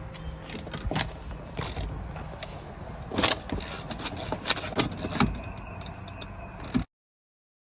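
Scattered knocks, clicks and rattles of car interior trim pieces and hand tools being handled as the interior is taken apart, with the loudest knock a little past three seconds in; the sound cuts off abruptly near the end.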